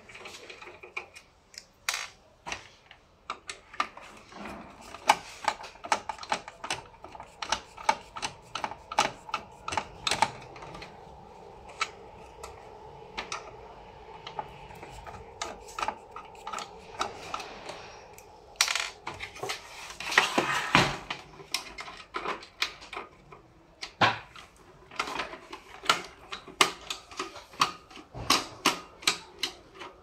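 Irregular clicks and knocks of an HP LaserJet 1020 printer's casing and parts being handled and taken apart by hand, several clicks a second in places, with a short scraping rustle about twenty seconds in.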